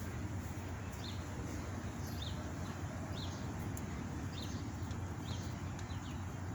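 A bird repeating a short, high chirp about once a second, over a steady low rumble of wind.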